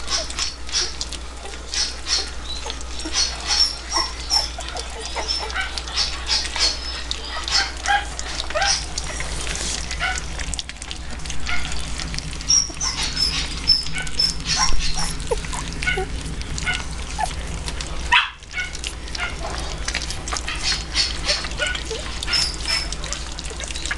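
Three-week-old Shetland sheepdog puppies eating soft food from a plate: wet lapping and smacking clicks, mixed with frequent short, high squeaks and whimpers.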